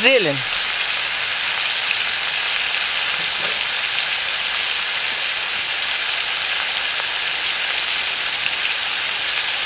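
Chicken, beans and vegetables sizzling steadily in oil in a saj, a large concave steel pan over a wood fire.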